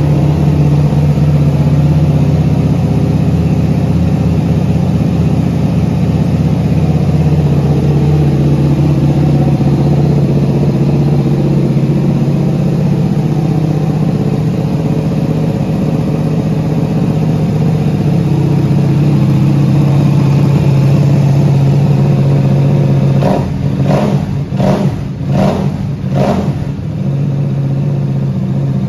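KTM RC8 1190's 1190cc V-twin idling steadily through its aftermarket exhaust, then a quick run of about five sharp throttle blips near the end.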